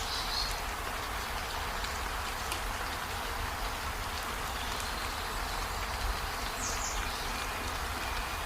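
Steady rain-like hiss, with one short high chirp about two-thirds of the way through.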